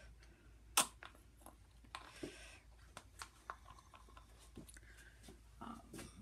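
Faint handling of plastic mixing cups and stir sticks on a work table: one sharp knock about a second in, then scattered light clicks and a brief rustle.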